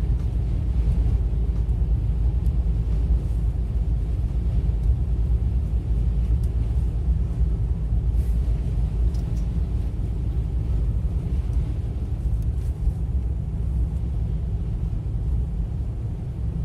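Steady low rumble of a car driving, heard from inside the cabin, with a few faint ticks above it.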